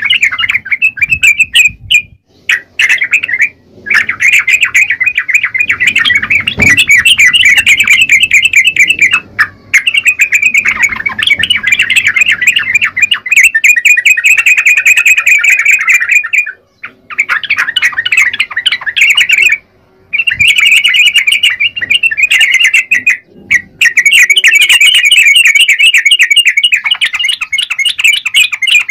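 Yellow-vented bulbul singing loudly in long runs of rapid chattering notes, several seconds each, broken by short pauses.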